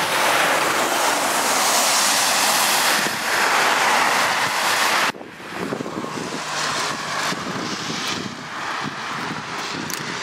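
A vehicle passing close by on the road, a loud rush of tyre noise that cuts off abruptly about five seconds in, leaving quieter outdoor noise.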